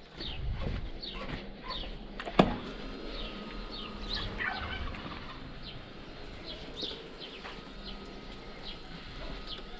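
Birds chirping in short descending notes, over and over, with a brief burst of rattling calls near the middle. A single loud click about two and a half seconds in comes as an electric switch box is pressed.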